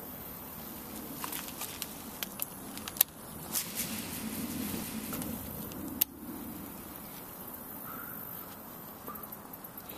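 Outdoor ambience with scattered light clicks, and two sharp knocks about three and six seconds in.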